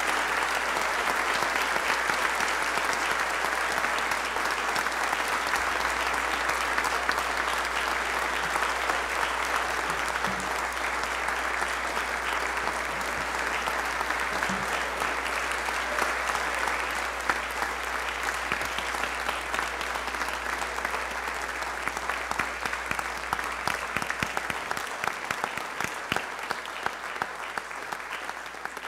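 Audience applauding, a long, dense ovation that thins out near the end into scattered individual claps.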